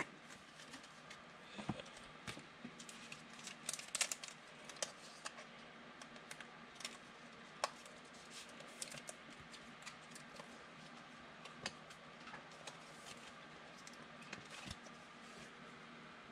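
Faint, irregular clicks and light taps of trading cards being handled and squared up at a table, a few sharper ticks among them.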